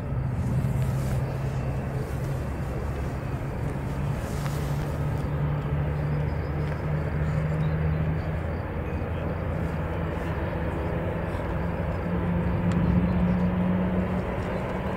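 Jet airliner engines running, a steady rumble with a low drone that climbs slightly in pitch over the last few seconds.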